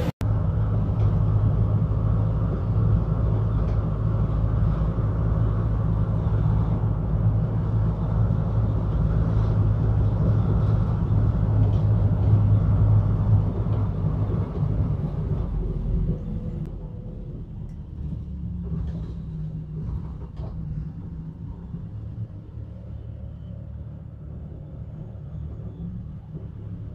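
A bus running, heard from inside the cabin: a steady low engine and road rumble that becomes noticeably quieter about two-thirds of the way through, with a few light rattles after that.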